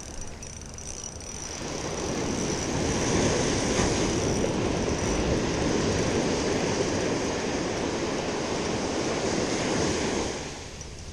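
Ocean surf rushing up the beach: the roar of a breaking wave and its wash swells about a second and a half in, holds steady, then falls away near the end.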